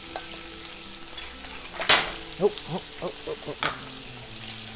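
Fried rice sizzling steadily in a hot pan while chopped onions are scraped off a wooden cutting board back into it. A sharp clack comes about two seconds in, then a few short sounds that rise and fall in pitch.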